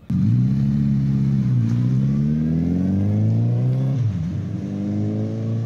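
Motorcycle engine revving, its pitch climbing steadily, then breaking off about four seconds in and climbing again.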